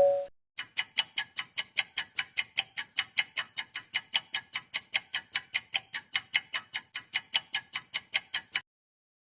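Clock ticking sound effect: fast, even ticks, about five a second, for about eight seconds, then it stops abruptly. The tail of a two-tone chime fades out at the very start.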